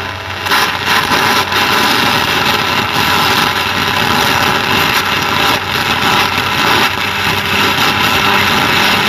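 TIG welding arc burning on a piece of brass, fed from a small home stick welder through a TIG torch kit: a steady, loud crackling hiss with irregular pops.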